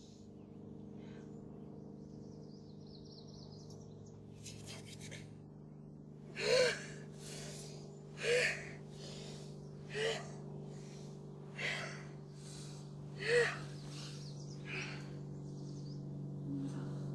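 A young woman gasping for breath, about six sharp gasps spaced a second and a half to two seconds apart, over a steady low hum.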